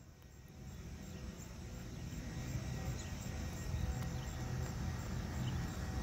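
Low rumble of an approaching vehicle, building over the first few seconds and then holding steady.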